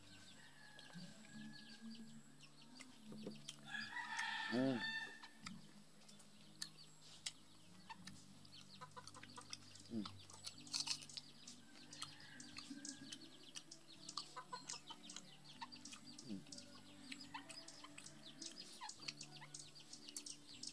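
A rooster crows once, about four seconds in, over scattered clucking and small bird chirps. Soft clicks of chewing and eating by hand come and go.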